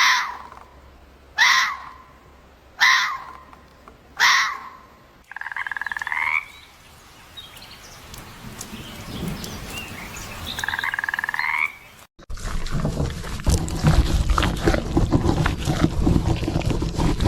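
Animal calls: four short, sharp calls about a second and a half apart, then two longer calls made of rapid pulses, rising slightly at the end. About twelve seconds in, these cut to a busier, noisier sound with many knocks.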